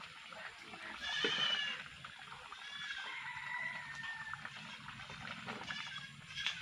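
An animal calling: a few short, high, wavering cries about a second in and again around three seconds in, with faint clinks of a steel ladle against a steel bowl.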